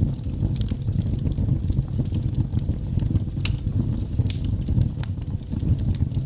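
Fire burning with a steady low roar and scattered sharp crackles and pops, a couple of louder pops about three and a half and five seconds in.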